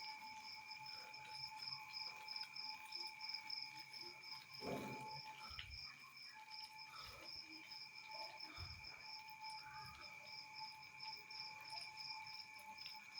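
Crickets chirping faintly at night: a high, fast-pulsing trill over other steady insect tones. A short low sound breaks in about four and a half seconds in.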